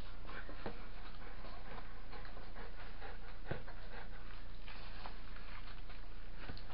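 Large dog panting steadily, with small clicks and rustles from hands fitting a boot onto its paw, over a constant low hum.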